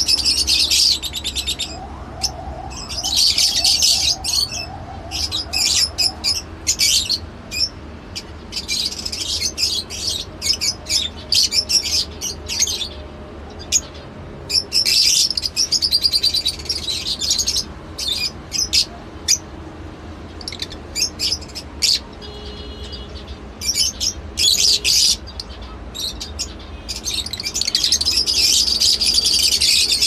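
A mixed flock of caged Fischer's and masked lovebirds chirping, with rapid, shrill high-pitched chatter in bouts of a few seconds separated by brief lulls. A steady low hum runs underneath.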